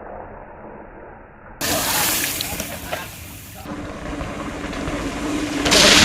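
Mountain bike riding on a dirt trail: steady wind and tyre noise that jumps abruptly louder about a second and a half in, changes again past halfway, and is loudest near the end.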